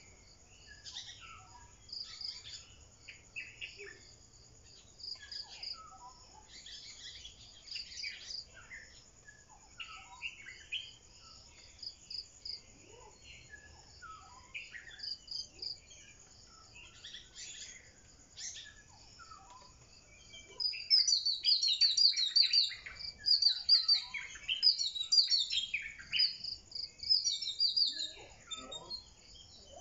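Outdoor ambience of birds chirping and calling over an insect chirping in steady high pulses, with a burst of louder, rapid birdsong in the last third.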